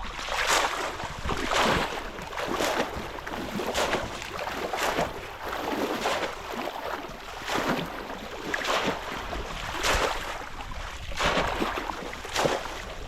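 Water splashing and sloshing in a shallow river, about once a second in a steady rhythm, as someone moves through the water fishing with a bamboo polo trap.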